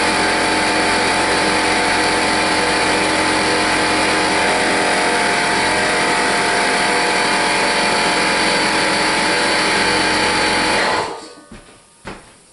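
A motor-driven machine running steadily, a hum of steady tones over a broad rushing noise, that shuts off abruptly near the end, followed by a couple of faint knocks.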